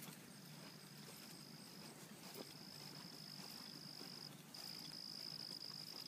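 Insect trilling: one steady high-pitched trill that runs in long stretches of one to two seconds with short breaks between them. The last stretch is the loudest.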